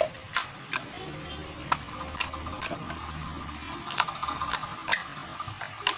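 Glossy slime being squished and worked by hand, giving off irregular sharp wet clicks and pops, roughly one or two a second.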